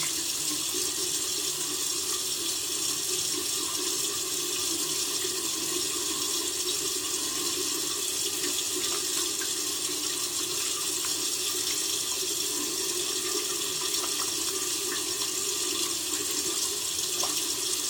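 Sink tap left running, water pouring steadily into the basin.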